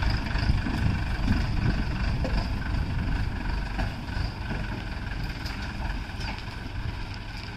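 Mahindra tractor's diesel engine working hard under heavy load as it pulls a log-laden trailer through soft ground; the load is heaviest in the first couple of seconds, then the engine eases slightly.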